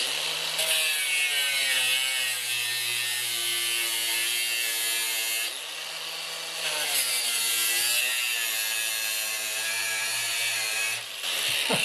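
Angle grinder running with its disc pressed into the hard plastic rim of a Ford F100 steering wheel, melting the plastic. The motor whine sits lower under load, rises briefly about five and a half seconds in as the disc comes off, then drops again as it bites back in, and it cuts out near the end.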